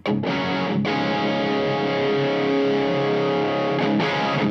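Electric guitar played through an LPD Pedals Seventy4 amp-in-a-box pedal with the gain turned down, giving a lightly driven tone. A chord is strummed and left to ring for about four seconds, then struck again near the end.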